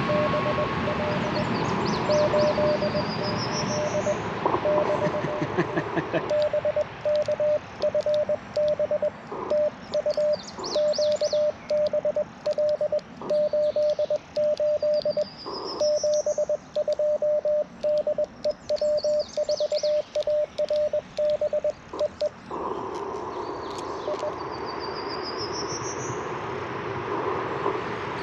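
Morse code (CW) from an Icom IC-705 transceiver: one steady mid-pitched tone keyed on and off in dots and dashes from about six seconds in until about twenty-two seconds in, with the radio's receiver hiss before and after.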